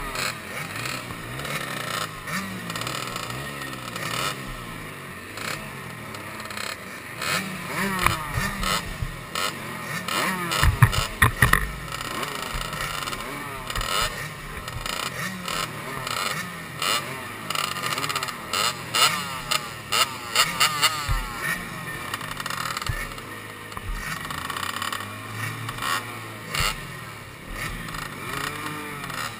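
Several small two-stroke motocross bikes, among them a KTM 65, idling and being revved in repeated blips while lined up behind the starting gate. The engine pitch rises and falls over and over, with the sharpest revs about a third and two-thirds of the way through.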